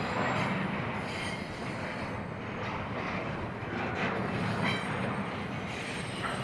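Union Pacific intermodal freight cars rolling past on the rails with a steady rumble and a few brief high wheel squeals.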